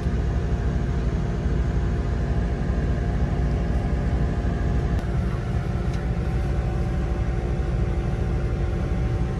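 Chevrolet truck's engine running, heard from inside the closed cab with the air conditioning on: a steady low rumble.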